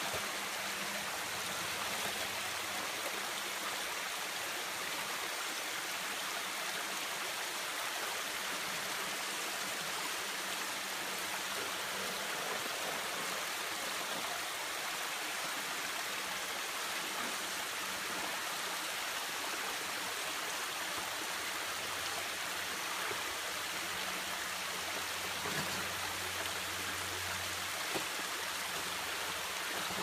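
Water from a small waterfall running steadily down a rocky creek bed, a constant rushing. A faint low hum comes in near the start and again in the last third.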